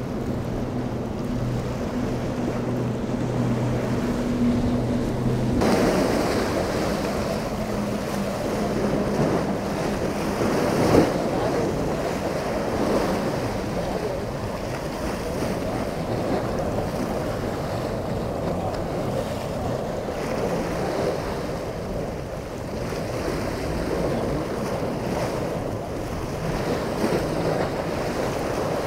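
Wind buffeting the microphone over choppy inlet water lapping and splashing. For the first five to six seconds a boat engine idles with a steady low hum, then stops. There is a single sharp thump about eleven seconds in.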